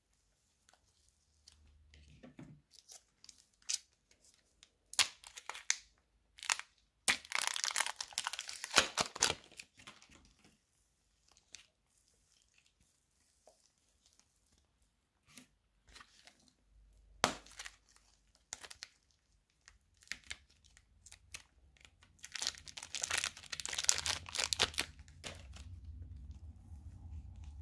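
Soft, airy modelling clay crackling and tearing as fingers unroll, squeeze and stretch it apart. Scattered sharp clicks, with two longer runs of dense crackling, one about a quarter of the way in and one near the end.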